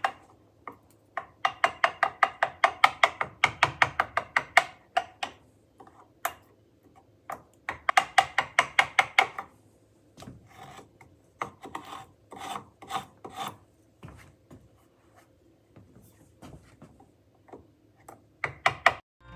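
Hand tool rasping the edge of a wooden door in quick back-and-forth strokes, about six a second, in runs of one to three seconds with short pauses and a few single strokes between.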